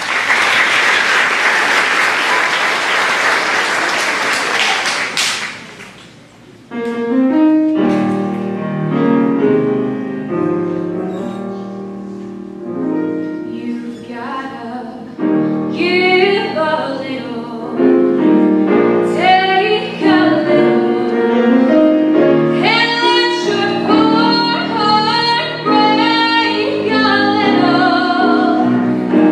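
Audience applauding for about six seconds, then female voices start singing with instrumental accompaniment.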